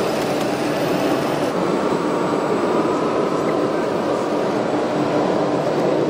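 Radio-controlled model heavy-haul truck running with a steady engine-like drone and a faint motor whine, over the constant background noise of a crowded hall.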